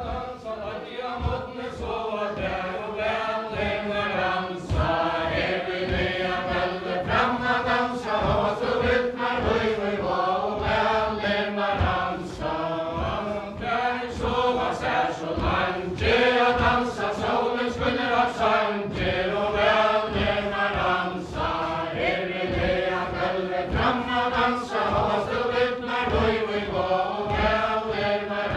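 Men and women singing a Faroese kvæði ballad together without instruments, in steady repeated phrases, with the regular tread of many dancers' feet on a wooden floor keeping the beat of the chain dance.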